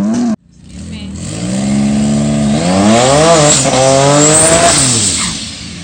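Turbocharged Honda J32A3 3.2-litre V6, swapped into a Honda S2000, revving. Its pitch climbs and drops twice, then it fades near the end.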